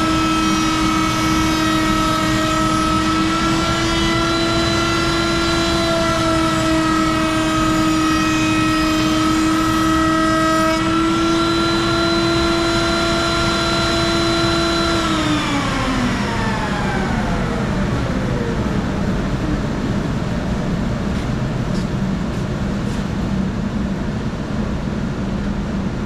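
Router table's high-speed router running with a steady whine while a barn-board piece is fed past the cutter. About eleven seconds in the cutting noise stops and the pitch rises slightly as the bit runs free; about fifteen seconds in the router is switched off and its whine falls away over a few seconds, leaving a steady low hum.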